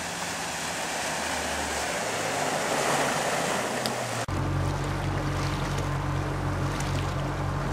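A motorboat approaching at speed, its engine and rushing wake growing louder. About halfway through the sound cuts to the steady low drone of a boat engine heard from aboard.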